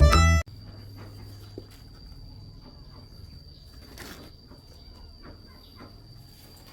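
Background music ends abruptly about half a second in, leaving faint background sound with a steady high-pitched whine and a few soft rustles.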